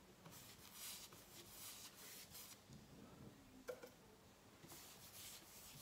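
Faint brushing of a paintbrush drawn along a painted wooden cabinet panel, a few soft strokes, with a small click a little after halfway.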